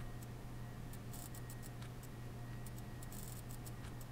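Faint clicks of a computer mouse and keyboard, in quick clusters of several clicks, as frames are stepped through one at a time and markers are set. A steady low hum runs underneath.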